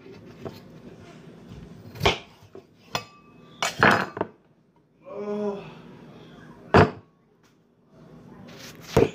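Kitchen clatter: a few sharp knocks of dishes and utensils spaced a second or two apart, the loudest about seven seconds in. A short pitched sound comes about five seconds in.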